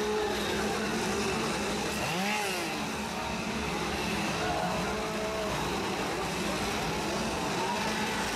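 Several two-stroke chainsaws running together in a steady drone, their engines revved up and down so the pitch swings in arcs.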